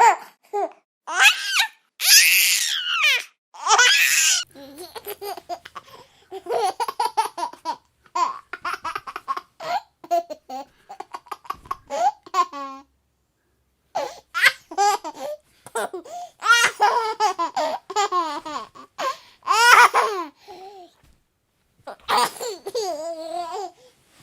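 A baby laughing and babbling in short bursts of high, gliding giggles, with a brief silent break a little after halfway.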